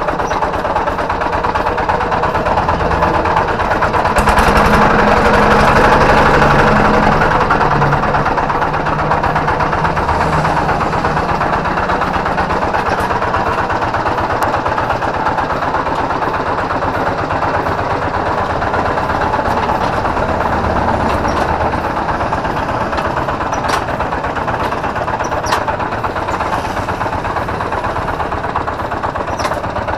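Kubota single-cylinder diesel engine of a two-wheel hand tractor running under way, with a very rough sound. It gets louder for a few seconds about four seconds in and then settles. The mechanic suspects a worn bearing, either the one by the flywheel or the one by the gears.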